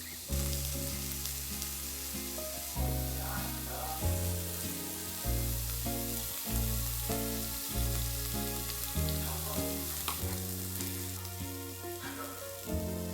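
Food sizzling on a grill, a steady frying hiss, under background music with low held notes that change every second or so.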